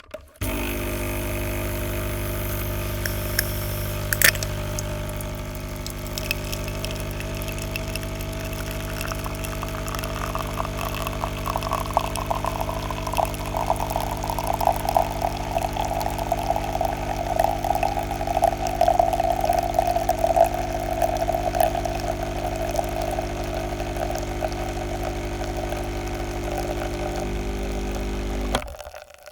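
Coffee machine brewing: its pump motor hums steadily, with a sharp click about four seconds in. From about ten seconds in a flickering, gurgling flow of liquid builds up and then eases off, and the machine cuts off suddenly near the end.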